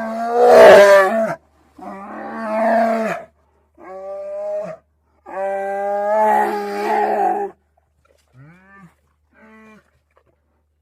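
Andean bear calling: four drawn-out calls, each held at a steady pitch, followed by two short, faint calls near the end.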